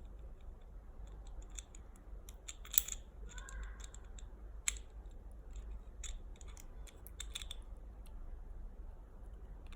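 Small, sharp metal clicks and ticks of a screwdriver and lightsaber hilt parts being handled during disassembly, scattered irregularly, with two louder clicks about three and five seconds in.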